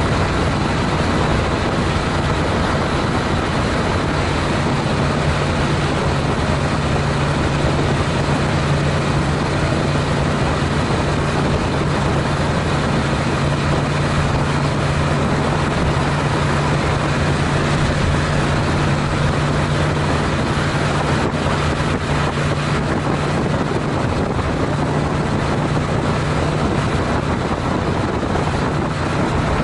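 Honda CTX700N motorcycle at a steady highway cruise of about 65 mph: a constant rush of wind and road noise over the even drone of its 670 cc parallel-twin engine.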